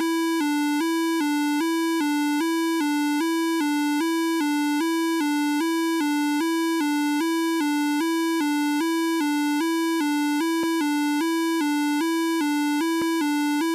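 Electronic emergency-alert alarm tone: a buzzy synthesized tone alternating between two close pitches, about four changes a second, with a few brief dropouts after about ten seconds.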